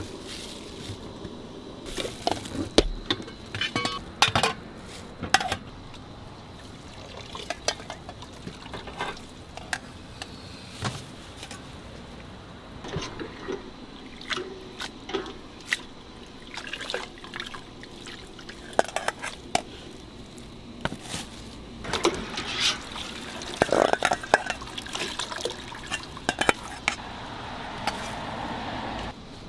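Noodles being boiled and drained: stainless-steel pots, a wire-mesh strainer and metal bowls knock and clatter, with water sloshing and splashing. The noodles are scooped from the boiling water, drained and portioned into bowls. The clatter comes in short sharp knocks, with a busier run of splashing and clinking past the middle.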